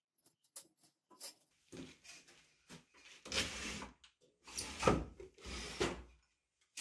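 Steel wire rod scraping and rattling against a galvanized weld-mesh cage as it is threaded through the mesh by hand: a few light clicks, then several rough scrapes and rattles.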